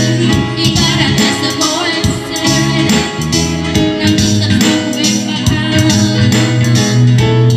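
Girls singing a song into microphones over live electronic keyboard accompaniment with a steady beat, heard through PA loudspeakers.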